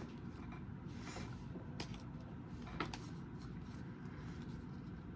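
Trading cards being handled and flipped through: a few faint soft clicks and rustles over a low steady background hum.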